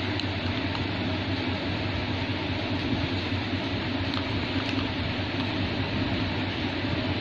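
Steady background hum and hiss, with no distinct events.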